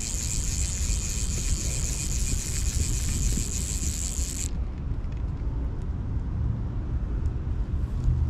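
Wind buffeting the microphone, a steady low rumble. A steady high hiss runs alongside it and cuts off abruptly about four and a half seconds in.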